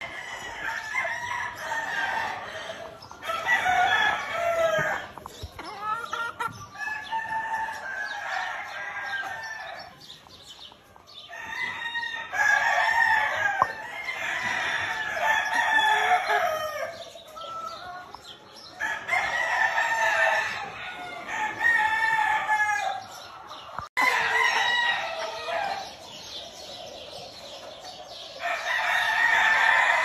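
Several gamefowl roosters crowing one after another, the crows overlapping into a near-continuous chorus.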